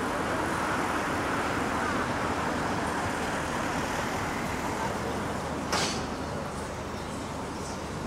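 Steady road traffic noise along a riverside street, a continuous hum of passing cars. A single short, sharp knock stands out about two-thirds of the way through.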